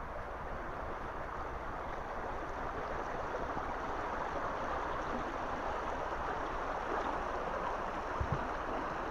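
Small forest stream rushing over rocks, a steady wash of water noise that swells slightly midway, over a constant low rumble. A couple of short low thumps come near the end.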